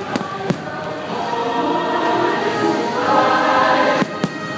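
Fireworks show music with a choir singing, over which a few sharp firework bangs go off: two just after the start and two near the end.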